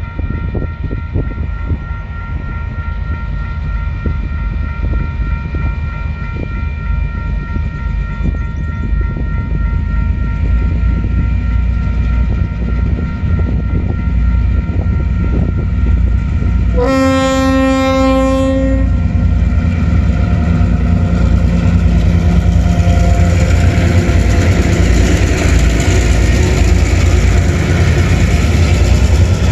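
Level crossing warning bell ringing as a lashup of TasRail DQ class diesel locomotives approaches. A single long horn blast comes just past halfway, then the locomotives' diesel engines grow steadily louder as they pass close by, hauling empty ore wagons.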